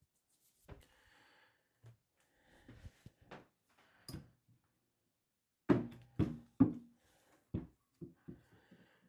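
Scattered knocks and light scraping as handmade soap bars are cut and handled on a work surface, with three heavier thuds in quick succession about six seconds in, then a few lighter knocks.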